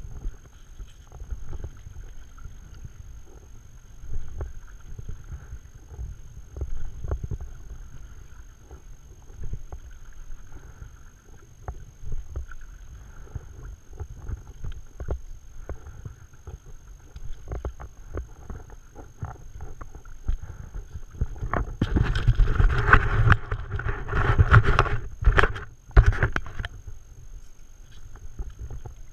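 Stand-up paddle strokes through calm water: repeated dips and pulls with small splashes, drips and irregular knocks of the paddle, over a low rumble of wind on the microphone. Near the end, a louder stretch of rushing, splashing noise lasts about four seconds.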